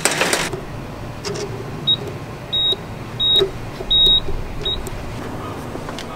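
Electronic PIN keypad on a waste-compactor enclosure beeping as a code is keyed in: five high beeps about two-thirds of a second apart, the middle three longer than the first and last. A brief rustle comes right at the start, over low steady background noise.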